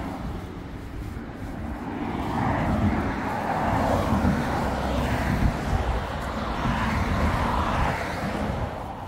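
Road traffic, several vehicles passing close by with tyre and engine noise. It swells about two seconds in, surges a few times, and eases off near the end.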